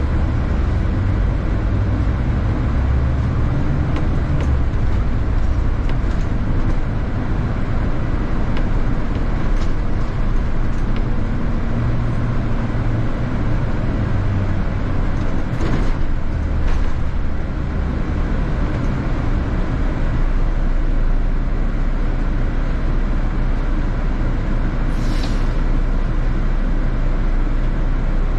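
City bus running along the road: a steady low drone of engine and road noise, with a brief hiss about 25 seconds in.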